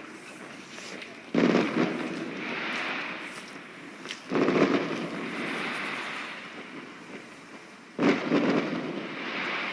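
Fireworks going off: three sudden loud bangs, about a second in, about four seconds in and near the end, each followed by a few seconds of crackle that slowly fades.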